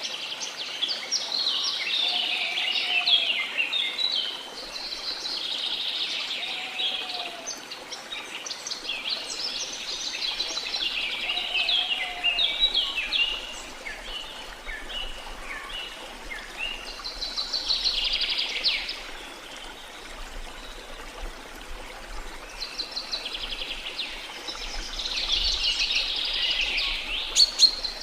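Rain forest birds singing in phrases of rapid high chirps and trills every few seconds over a steady rush of flowing water, with a short lower call repeated a few times in the first several seconds.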